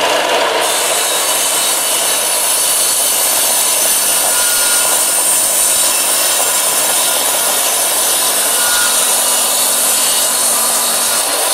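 Makita sliding mitre saw with a discount-store 60-tooth crosscut blade cutting slowly through a thick block of oak wood, a steady unbroken sawing noise.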